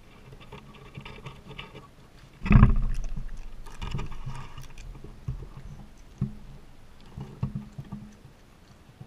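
A raccoon brushing against and bumping a ground-level camera: fur rubbing over the microphone, a loud thump about two and a half seconds in that dies away over a second, then scattered light knocks and clicks from the raccoons moving and feeding at the camera.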